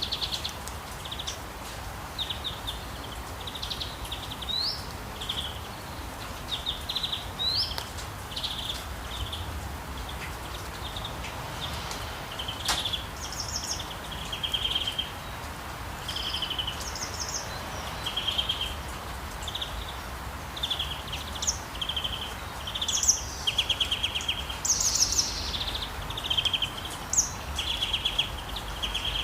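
Several birds chirping and calling in short repeated phrases over a steady soft hiss of rainy-day ambience, with one sharp click near the middle.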